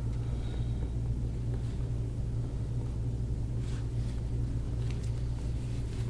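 Steady low rumbling hum with a few faint, brief rustles.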